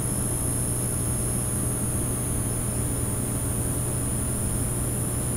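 A steady low drone under an even hiss, with no rhythm or change in pitch.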